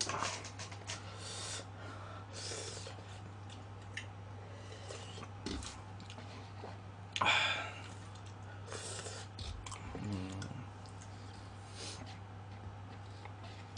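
A person chewing and slurping instant cup ramen noodles close to the microphone, in short irregular bursts, one louder about seven seconds in. A steady low hum runs underneath.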